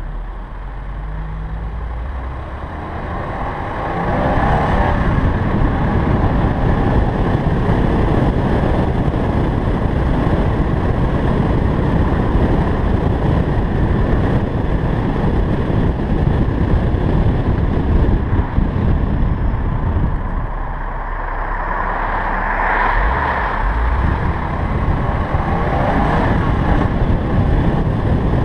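Subaru BRZ tS on the move, heard from a camera mounted outside on the car: summer tyres hissing on wet pavement with wind noise over the microphone. The noise swells as the car pulls away about four seconds in, eases for a couple of seconds past the two-thirds mark, then picks up again.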